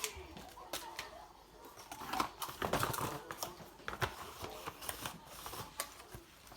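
Irregular clicks and rustling from parts and packaging being handled, busiest in the middle.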